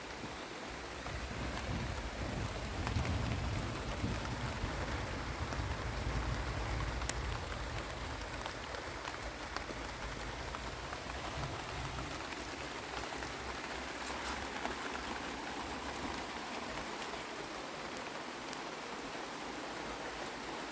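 Steady summer rain falling, with a low rumble through the first half that fades away.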